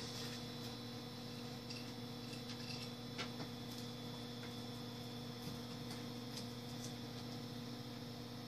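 Quiet room tone: a steady electrical hum with a few faint clicks.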